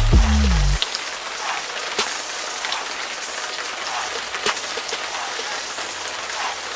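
Live gym sound of a youth basketball game in play: a steady wash of crowd and court noise with frequent sharp knocks and short squeaks of sneakers on the gym floor. Backing music cuts off just under a second in.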